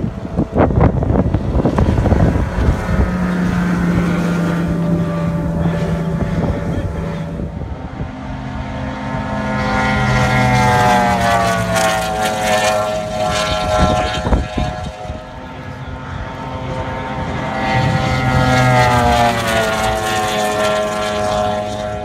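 Outboard motors of speedboats running at high revs as they race past, the engine note swelling and gliding down in pitch twice as the boats go by.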